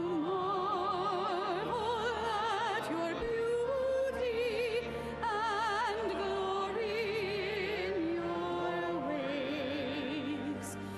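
Sacred music: a solo voice singing a slow melody with wide vibrato over sustained low accompanying notes.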